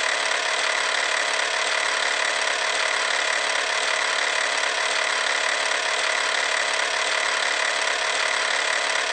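Film projector running: a steady, even mechanical whir.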